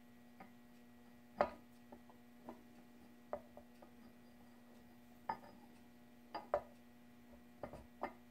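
Faint, scattered metal clicks and knocks as the timing gears of a 6-71 Roots blower are handled and pushed onto the rotor shafts, over a faint steady hum.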